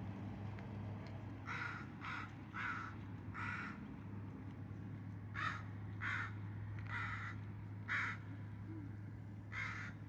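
A crow cawing about ten times in short runs: four caws, a pause, four more, then two near the end, over a steady low hum.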